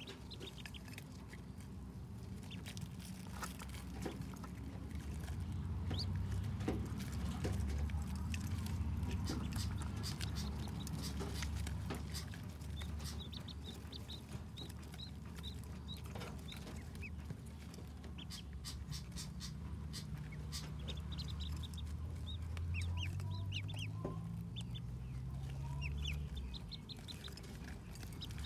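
A brood of ducklings peeping in short, high chirps, with scattered sharp clicks and taps as they feed at the dishes, over a steady low rumble.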